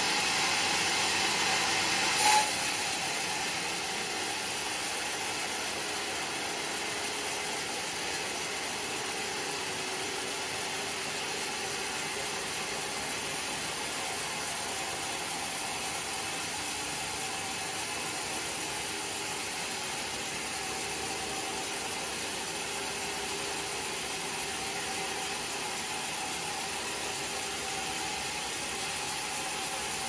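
Band sawmill blade running through a large timber, a steady grinding whine of the saw in the cut. A brief loud burst comes about two seconds in, after which the sawing carries on slightly quieter.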